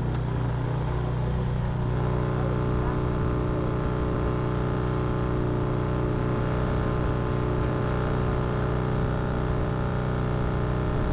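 Small Arctic Cat four-wheeler (ATV) engine running at a steady speed.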